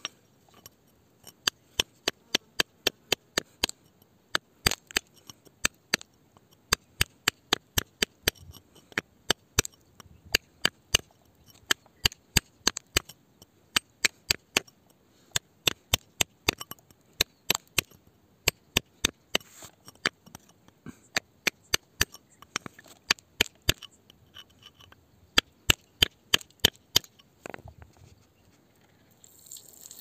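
A hand tool striking and chipping at rock: sharp taps, about three a second, in runs with short pauses, stopping a few seconds before the end.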